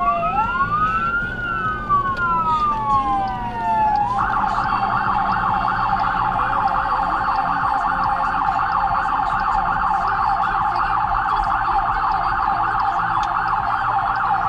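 SoundOff Signal nERGY 400 electronic siren through 100J composite speakers, wailing in slow rising and falling sweeps with a second wail out of step with it, then switching about four seconds in to a fast yelp of about three to four sweeps a second.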